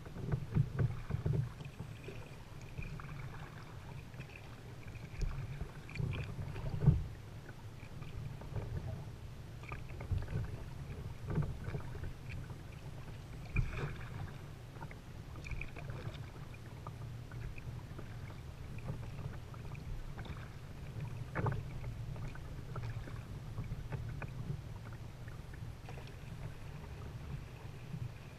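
Kayak being paddled across calm water: soft, irregular paddle splashes and water lapping against the hull over a steady low rumble, with the splashes most frequent in the first half.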